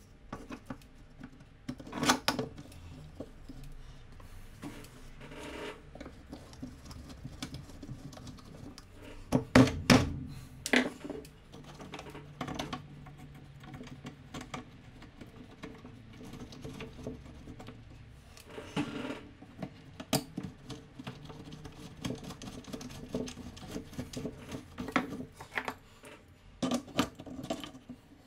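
Scattered knocks, clicks and clunks of cast-iron parts of an antique beam drill being handled and fitted on a wooden bench. The loudest knocks come about ten seconds in.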